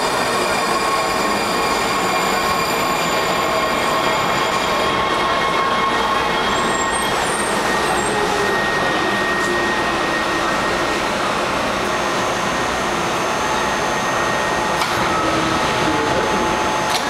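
Washington Metro train pulling in along the platform and slowing to a stop, with steady rolling rail noise. A set of high, steady whining tones cuts out about five seconds in, and a fainter single whine carries on as the train slows.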